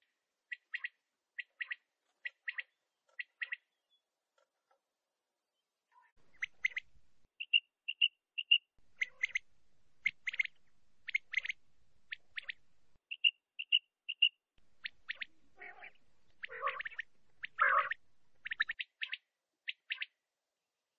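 Male quail (batair) calling: short sharp notes in quick pairs and triplets, repeated about once a second, with a gap of about two seconds after the first few. Near the end come two louder, rougher calls with a lower tone.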